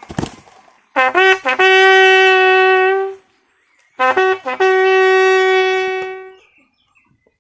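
A bugle sounding a ceremonial salute call in two phrases, each opening with two short quick notes that climb into one long held note. A short sharp crack comes right at the start.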